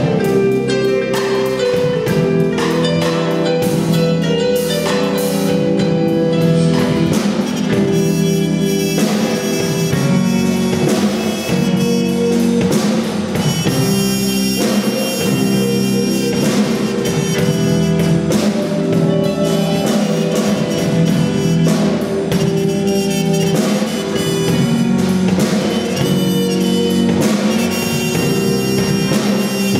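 Live band playing a Polish Christmas carol arrangement: trumpet lead over drum kit and electric bass, in an instrumental passage.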